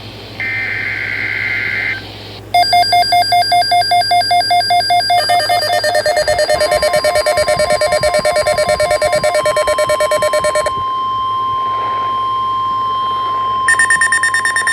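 Emergency Alert System weather-radio alert signals: a harsh warbling data burst, the SAME header, for about the first two seconds, then rapid pulsing electronic alarm beeps. From about six seconds in, a steady single-pitch warning tone, the NOAA Weather Radio 1050 Hz alarm, sounds under the beeps until near the end.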